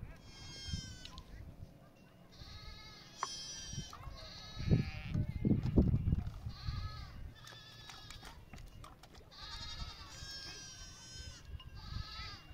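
Several goats or sheep bleating, high-pitched calls overlapping throughout, with a few low thuds about halfway through.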